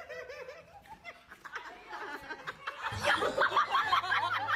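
Off-camera person laughing in quick, bouncing bursts of snickering that grow louder and more continuous about three seconds in. A low steady hum joins underneath at about the same time.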